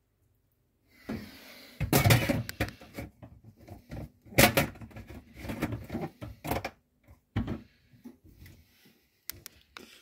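Dishwasher's wire racks clattering and knocking as they are handled, a run of irregular knocks and rattles starting about a second in, with the loudest strikes around two and four and a half seconds.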